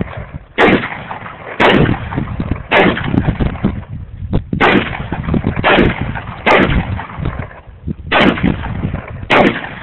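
Saiga 12 semi-automatic 12-gauge shotgun firing about eight shots, roughly one a second, with two short pauses between strings of shots. Each shot rings out with an echoing tail.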